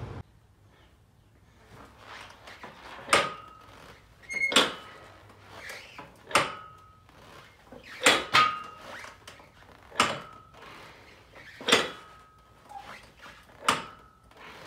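Reverse hyperextension machine loaded with steel weight plates clanking with each rep, a sharp clank about every one and a half to two seconds, each with a brief metallic ring.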